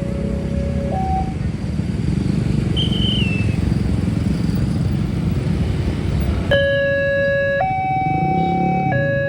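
Railway level-crossing warning alarm sounding two alternating tones, high then low, each held about a second. A heavy low rumble drowns it for several seconds, with one brief high squeal in the middle. The alarm then returns suddenly, loud and clear, about two-thirds of the way in.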